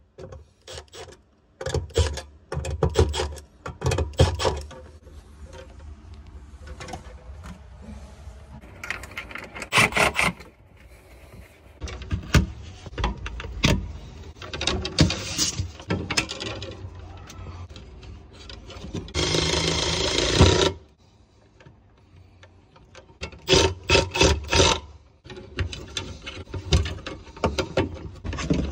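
Clicks, taps and scrapes of hands, wires and a driver working in a metal electrical outlet box, with one steady mechanical whir lasting about a second and a half about two-thirds of the way through.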